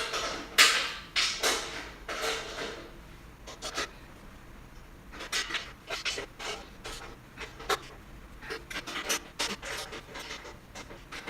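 Socket wrench snugging up the steel bolts and nuts of a motorcycle dolly frame: irregular clicks and scrapes of metal on metal, in a few short spells.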